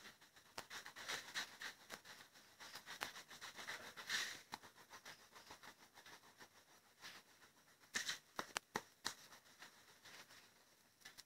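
Brown colouring pencil scribbling back and forth across paper in quick, faint strokes, with louder scratches around four and eight seconds in.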